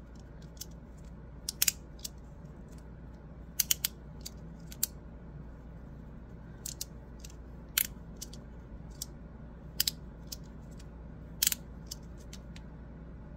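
Double-sided magnetic fidget slider clicking as its halves are slid and snap into their magnetic positions: irregular sharp clicks, some in quick pairs and threes.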